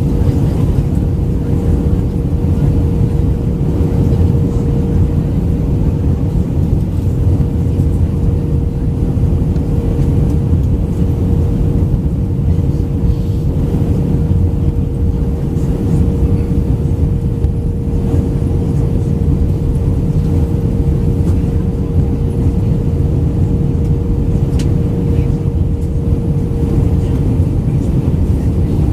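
Airbus A319-112 cabin noise during descent: a steady, loud rumble of airflow and its CFM56 engines, with a constant humming tone running through it.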